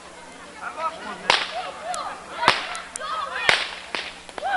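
Firecrackers going off: three loud sharp bangs about a second apart, each with a short fading tail, with smaller cracks between them.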